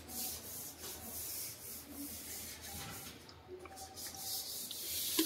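Soft scraping and rubbing of a thin stick against a metal tin of sealer, in short repeated strokes, as the sealer is poured into brown wood stainer to thicken it.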